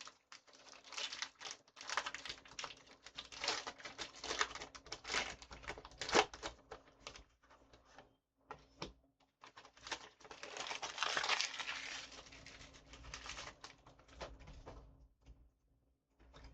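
Trading card packaging being opened and cards handled by hand: a run of small clicks, crinkles and rustles of foil wrapper and card stock, densest about ten to thirteen seconds in.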